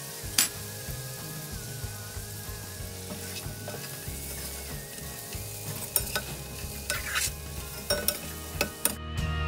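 Kung pao chicken sizzling in a stainless steel pan while it is stirred with a metal spatula, the cornstarch slurry just added to thicken the sauce. Sharp scrapes and clinks of the spatula against the pan come every so often over the steady sizzle.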